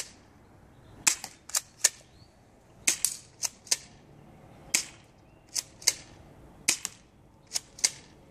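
Airsoft shotgun firing repeatedly: about fifteen sharp snaps, many coming in pairs a fraction of a second apart.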